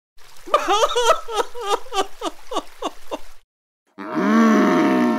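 Exaggerated comic sobbing: a run of about ten short wails, each falling in pitch, about three a second. After a short silence comes a loud angry huff, a low growl under a hiss of air, for the steam-from-the-nose face.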